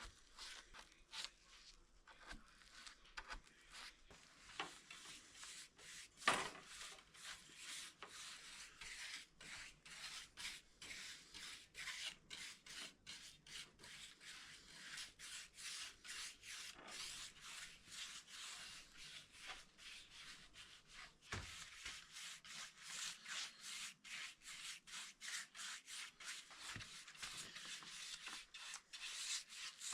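Faint, scratchy hand strokes rubbing back and forth on the oak cabinet's wood, quick and repeated, with one louder knock about six seconds in.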